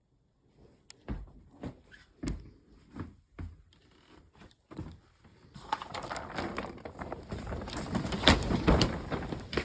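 A few soft thumps in the first half, then blizzard wind rushing over the microphone from about halfway, swelling to its loudest near the end.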